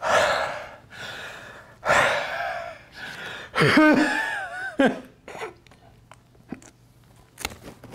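A person breathing hard onto a houseplant from close by: two long, loud, open-mouthed breaths, then a third, voiced breath with a wavering pitch about four seconds in. Only faint small clicks follow.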